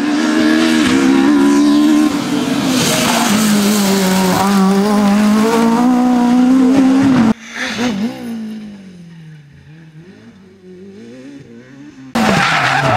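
Rally car engine at full throttle passing close, its pitch climbing and dropping with gear changes. About seven seconds in the sound cuts abruptly to a quieter engine revving further off, and near the end another loud pass cuts in suddenly.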